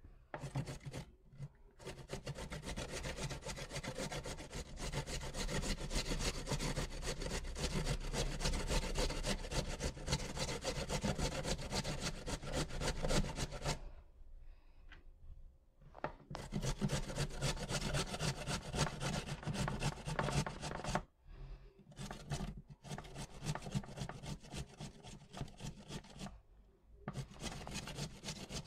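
A carrot being grated by hand on a flat stainless-steel grater: fast, even rasping strokes in long runs, stopping briefly about halfway through and twice more near the end.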